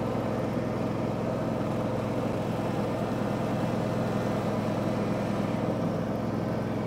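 John Deere X300 lawn tractor's Kawasaki 17-horsepower engine running steadily while the tractor drives through tight turns.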